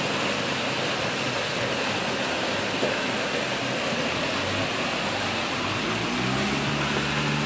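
Steady rush of water flowing through the washed-out hole under a road bridge. About four and a half seconds in, a motor vehicle's low engine hum joins it and runs on to the end.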